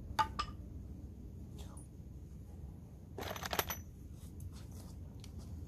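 Small metal hardware clinking and rattling in the hands: two sharp clicks near the start, then a short, dense jingling rattle about three seconds in.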